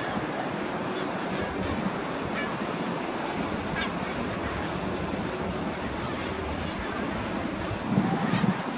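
Steady wash of surf and wind on the shore, with a louder low rumble of wind on the microphone near the end.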